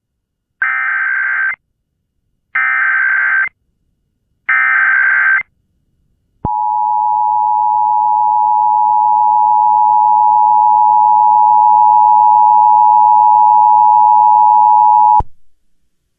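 Emergency Alert System tones: three one-second bursts of digital header data, then the two-tone attention signal held steadily for about nine seconds and cut off sharply.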